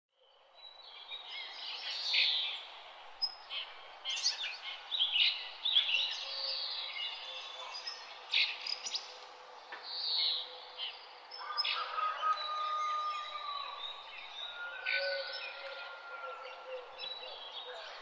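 Several wild birds chirping and trilling over a steady background hiss, fading in at the start. A few longer whistled notes come in past the middle.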